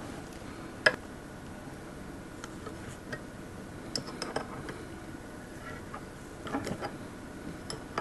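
Steel open-ended spanners clicking lightly against a metal N-type coaxial connector as they are fitted on and the back nut is tightened. The ticks are scattered and light, and the sharpest comes about a second in.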